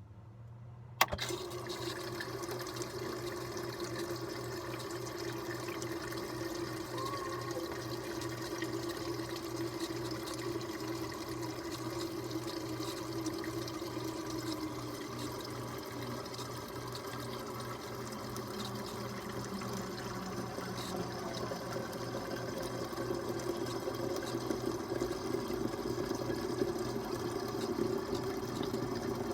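Refrigerator water dispenser running: a steady low hum with a click about a second in, then water flowing steadily into a container as it fills.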